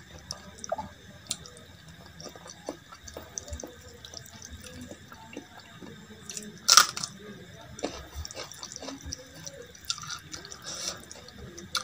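Close-miked wet eating sounds: fingers squishing dal into rice on a steel plate and mouth smacking while chewing. About seven seconds in comes one louder, crisp bite of a raw green chili.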